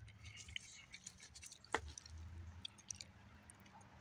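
Faint scattered small clicks and rustles, with one sharp click a little before the halfway point.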